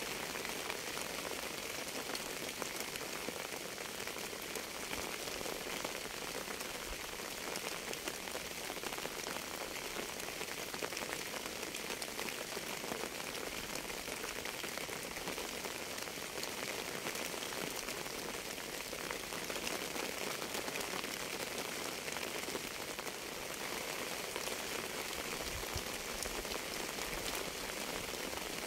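Steady rain falling: an even hiss of many small drops striking, with no change in strength.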